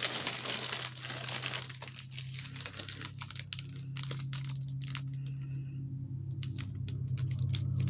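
Paper and plastic being handled and crinkled, dense rustling for the first second or so, then thinning to scattered light clicks and taps as items are picked through. A steady low hum runs underneath.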